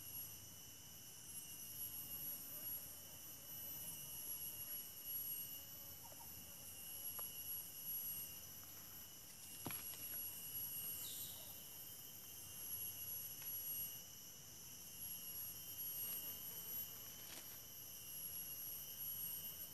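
Steady chorus of insects, several high continuous trills at different pitches sounding together and swelling slightly in level. A faint click about ten seconds in and a brief falling chirp just after it.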